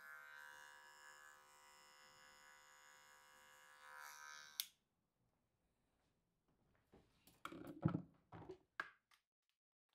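Electric hair clippers buzzing steadily as they cut, switched off with a sharp click about halfway through. After a short silence, a run of knocks and clatters as a wooden drawer is pulled open and rummaged through.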